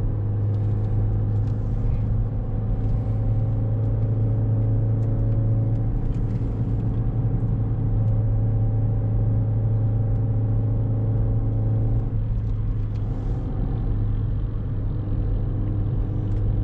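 Chevrolet Beat engine with a K&N air filter running steadily on the road, a continuous low engine hum; the note shifts slightly about twelve seconds in.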